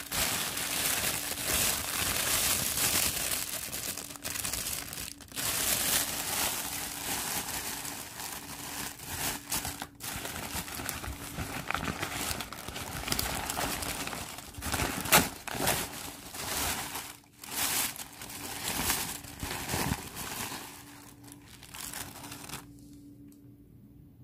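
Paper and plastic packaging crinkling and rustling as it is handled, with irregular sharp crackles; the noise stops about a second and a half before the end.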